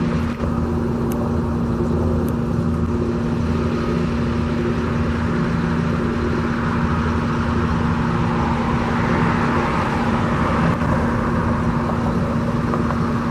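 Road traffic: a steady engine hum with a passing vehicle swelling up and fading about nine to eleven seconds in.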